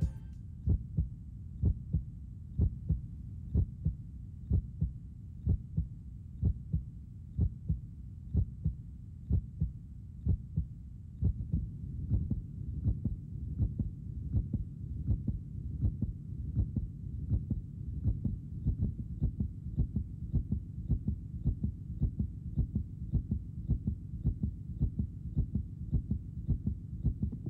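Heartbeat sound effect: a steady lub-dub pulse of low thumps, about one beat a second at first, then quicker and softer from about ten seconds in.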